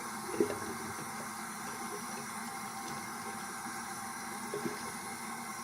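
Water running steadily from a tap into a sink, with a couple of faint splashes as a face is wetted.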